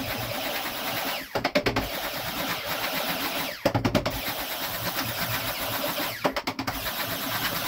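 Stick blender whizzing in a glass jug of soap oils, run in several pulses with short breaks about every two and a half seconds, to mix clay and goat's milk powder thoroughly into the oils.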